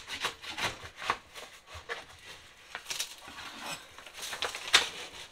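A 5-in-1 scraper working old, stuck-on wallpaper off a wall: scattered short scrapes and taps, the sharpest near the end.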